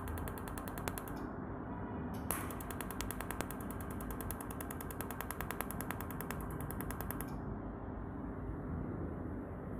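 Pulsed laser welder on a mould-repair machine firing a rapid, even train of sharp clicks, one click per laser pulse as each weld spot is laid. The clicks pause briefly about a second in, then stop about two-thirds of the way through. A steady machine hum runs underneath.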